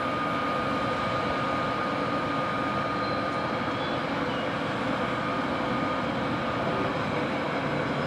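Siemens EU44 (ES64U4) electric locomotive rolling slowly alongside a platform with its passenger train: a steady running hum with a thin, high whine that fades out about four to seven seconds in.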